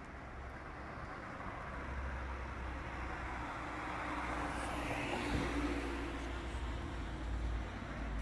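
Road traffic with a car driving past close by, its tyre and engine noise swelling to its loudest about five seconds in and then fading.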